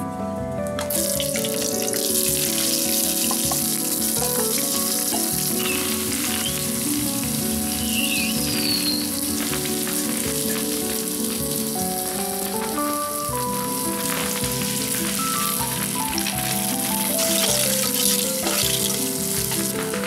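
Background music with held melodic notes over a steady sizzling hiss that starts abruptly about a second in.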